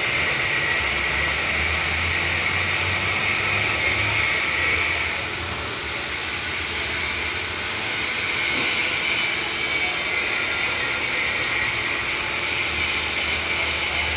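Steady machine noise, a continuous hiss with a low hum underneath, easing slightly in the middle before coming back up.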